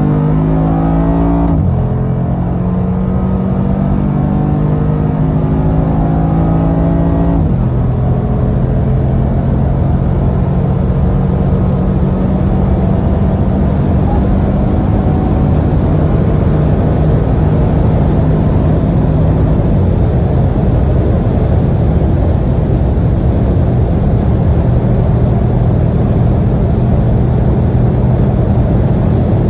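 Mercedes-AMG G63's twin-turbo V8 accelerating hard at Autobahn speed: its pitch climbs and drops sharply at upshifts about one and a half and seven and a half seconds in, then holds a steady drone that creeps higher, with another drop near twenty seconds. Road and wind noise run underneath throughout.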